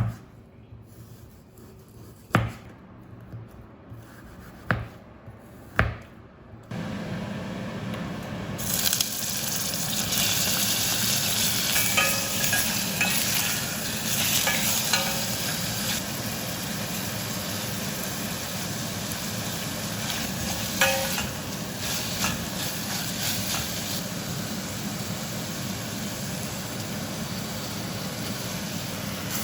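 A few sharp knocks, then food sizzling in a frying pan, starting about seven seconds in and running steadily.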